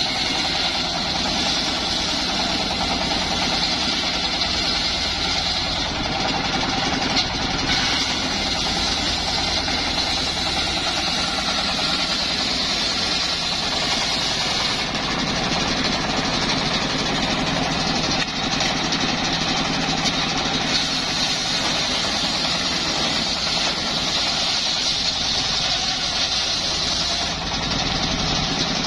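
Homemade engine-driven circular saw bench ripping teak boards: the engine runs steadily under load while the big blade cuts through the wood with a continuous high whine.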